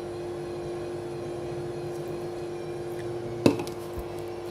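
A steady low hum with two held tones, and a single sharp click about three and a half seconds in.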